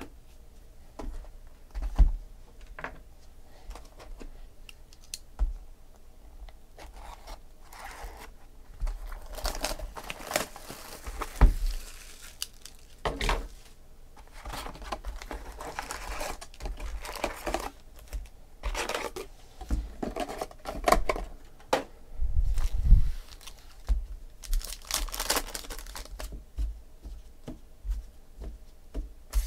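Shrink wrap and foil trading-card packs crinkling and tearing as a sealed baseball card hobby box is unwrapped and its packs are pulled out and stacked, with several sharp knocks of cardboard on the table.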